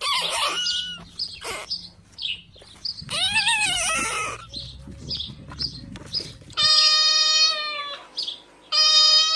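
Domestic cat meowing, a series of meows, the last two long and held level in pitch, with small birds chirping in the background.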